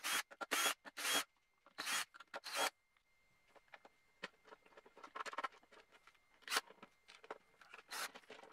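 Screwdriver backing out the housing screws of an Arsenal DA-18AH cordless drill: about five short scraping squeaks in the first three seconds. Then lighter clicks and rubbing of the plastic housing as it is handled and the halves are eased apart.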